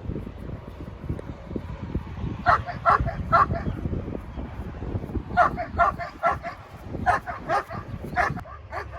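A dog barking in quick runs of short barks, three about two and a half seconds in, then a longer string of about ten, over a steady low rumble.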